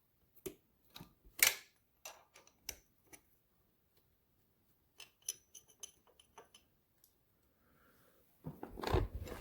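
Small metallic clicks and clinks of a socket ratchet and hand tools working the 10 mm bolts on a carburetor mount, with a quick run of ratchet clicks about five seconds in and a louder rustle of handling near the end.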